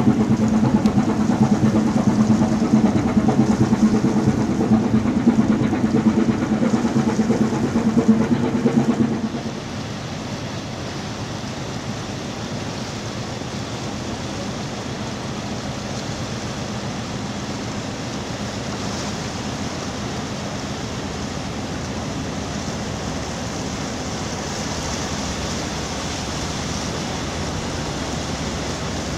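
A ship's diesel engine running with a steady low hum, stopping suddenly about nine seconds in. A steady rushing of water then takes over: the bow wave of a container ship under way.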